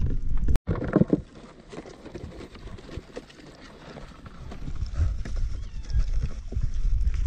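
Blue swimmer crab's legs clicking and scraping on the inside of a polystyrene fish box, with wind rumbling on the microphone.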